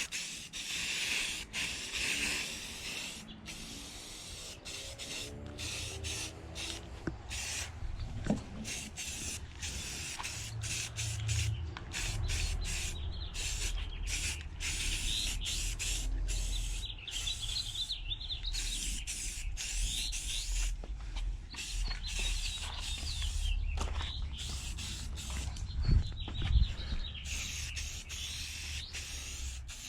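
Paint being sprayed in many short hissing passes, each broken off by a brief gap, as the final color coat goes on. A low steady hum runs underneath from about halfway through.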